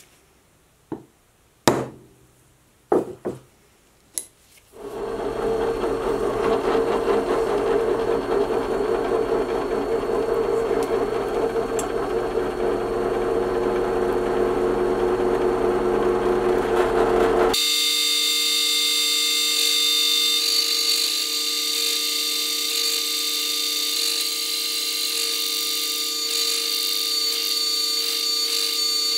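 A few sharp knocks of metal parts being handled on a workbench, then a drill press runs steadily, drilling a hole into a metal plate clamped in a vise. About two thirds of the way through, the sound shifts abruptly higher and thinner.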